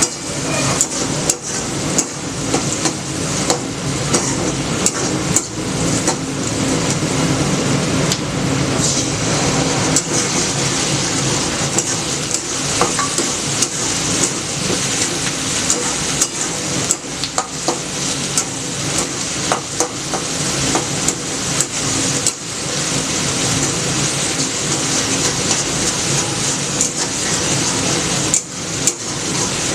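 Food frying in hot oil in a pan, sizzling steadily, while a cooking utensil is stirred through it, scraping and knocking against the pan with frequent short clicks.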